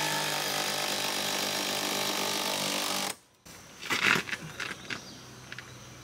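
Cordless drill running steadily as it drives a fastener through a metal bracket rail into a wall stud, stopping suddenly about three seconds in. After it, a metal L bracket is fitted against the rail with a short clatter and a few light knocks and clicks.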